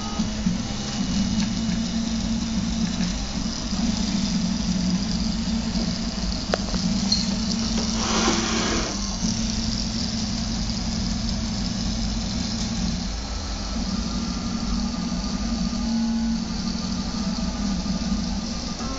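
RepRap Prusa Mendel 3D printer running a print: its stepper motors hum steadily, with short tones that step up and down in pitch as the axes move. There is a brief hiss about eight seconds in.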